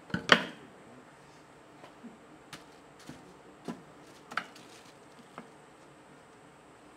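A sharp knock just after the start, then a scattering of light clicks and taps: a potter handling his hand tools and clay scraps at the wheel.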